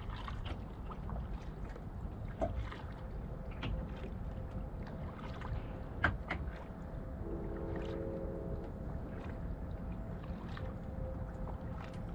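Kayak paddling on calm water: the paddle dipping, with irregular small splashes and drips off the blades over a low, steady rumble, and a sharper splash about six seconds in.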